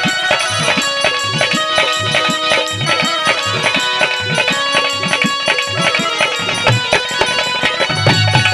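Instrumental passage of Haryanvi ragni folk music: a hand drum plays a busy rhythm with low strokes that bend in pitch, under held melodic instrument lines.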